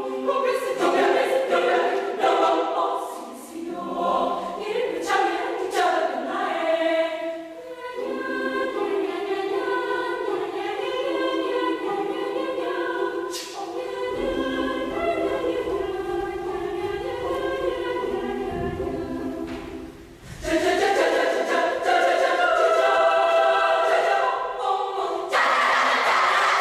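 Choir singing, holding long chords. Near the end, a burst of noise breaks in over the singing.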